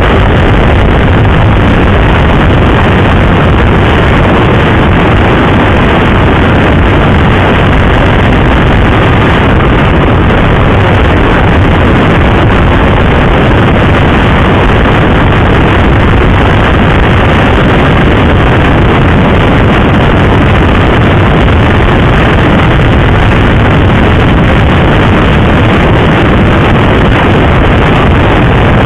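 Steady rush of wind over a rider's microphone on a moving motorcycle, with the bike's engine running underneath.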